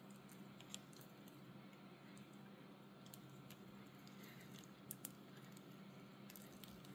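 Near silence with a few faint plastic clicks as an action figure's head is worked onto its neck peg: one about a second in and a quick pair about five seconds in.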